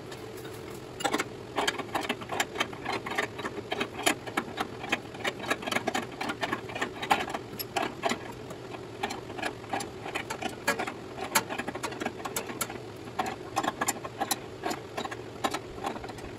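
Ratchet wrench clicking in quick runs with short pauses as the front deck-height adjustment bolt of a riding mower is turned to level the deck, over a steady low hum.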